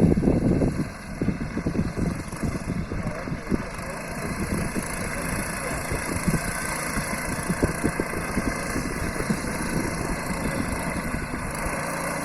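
Small engine of a two-wheel-drive motorcycle running, loud for about the first second, then settling to a steady idle.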